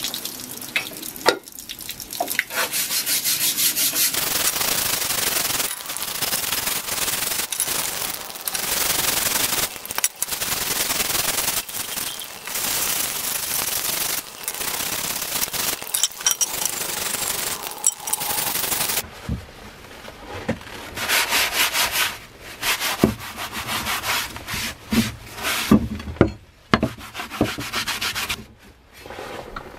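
Rusty steel cleaver blade scrubbed by hand under running hose water, a long spell of fast back-and-forth rubbing strokes. About nineteen seconds in this gives way to a paper towel wiping the blade on a wooden bench, in short rubbing spells with a few knocks.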